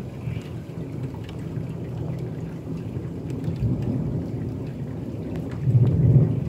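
Thunder rolling in a long low rumble that builds and is loudest about six seconds in, over steady rain.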